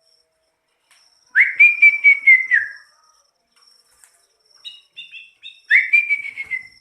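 Two long whistled notes, each jumping up at the start and then held and sliding slowly down, with a pulsing waver, and a few short high chirps between them.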